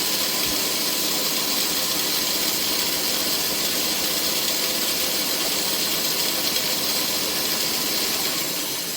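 Shopsmith Power Pro running steadily at about 1,000 RPM, set up for resawing walnut, with a steady whirring hiss. Near the end it is switched off and starts to wind down.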